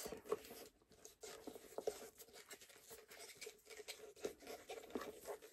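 Faint rustling and scattered light clicks as the detachable strap of a small pebbled-leather Gucci Jackie shoulder bag is handled and unclipped.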